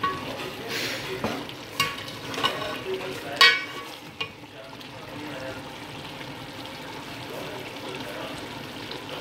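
A metal slotted spoon stirring a chicken, potato and pea curry in an aluminium pot, clinking and scraping against the pot a few times in the first four seconds, the loudest strike about three and a half seconds in. After that the curry sizzles steadily over a low flame as the masala fries in its oil.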